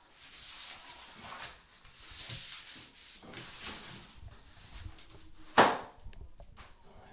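PVC wall panel rubbing and scraping against the tiles as it is slid and pressed into place, with a single sharp knock about five and a half seconds in.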